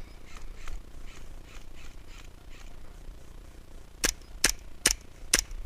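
An airsoft gun fires four sharp shots in quick succession, about two a second, near the end.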